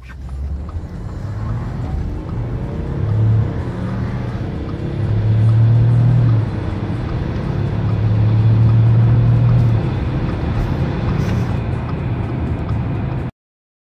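Car engine heard from inside the cabin under full-throttle acceleration from a standstill. Its low tone breaks off and picks up again about three, six and ten seconds in, as at gear changes, and the sound cuts off abruptly near the end.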